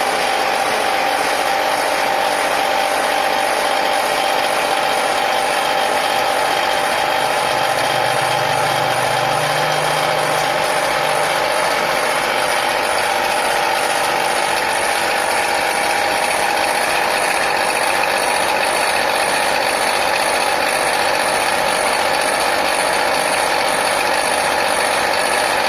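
Electric-motor-driven meatball meat grinder running steadily: a constant motor whine with an evenly repeating mechanical clatter from the drive and grinding screw.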